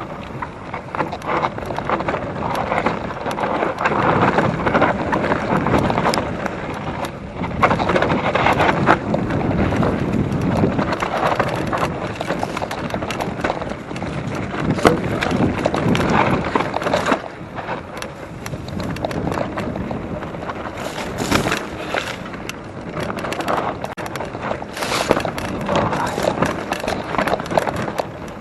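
Mountain bike riding down a rough dirt trail: tyres on the ground and the bike clattering over bumps, with wind buffeting the microphone.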